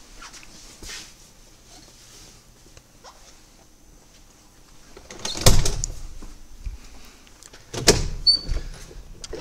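A door being opened and shut, heard as two loud knocks about two and a half seconds apart after a quiet stretch.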